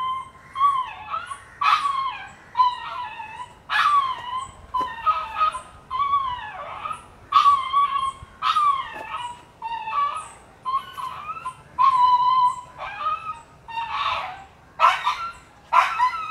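A dog yelping and whining over and over, short high-pitched cries coming one or two a second.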